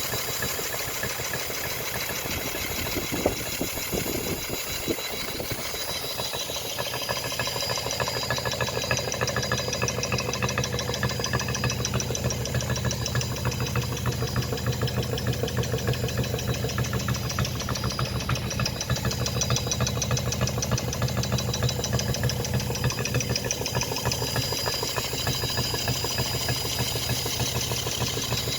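Electric drill running steadily with its trigger clamped down, driving a table leg round in a homemade lathe. A sharp click comes about three seconds in, with a few knocks after it, and the running gets a little louder from about six seconds on.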